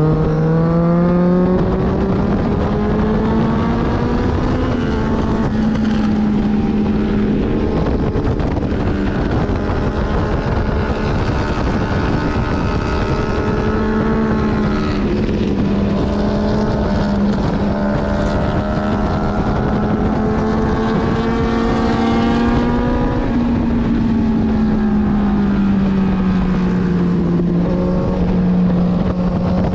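Kawasaki Z900's inline-four engine pulling hard on a race track. The pitch climbs over the first couple of seconds, holds fairly steady with small rises and dips, then falls away over the last few seconds. Wind rushes over the microphone throughout.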